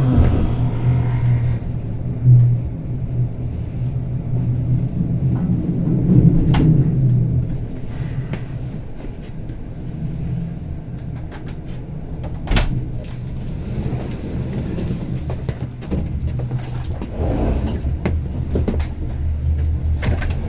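Bernina Express train running, heard from inside the passenger car: a steady low rumble with scattered clicks and knocks, and one sharper knock about midway.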